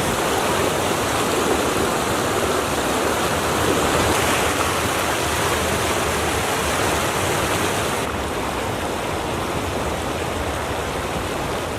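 Steady rushing of flowing water, a little quieter from about eight seconds in.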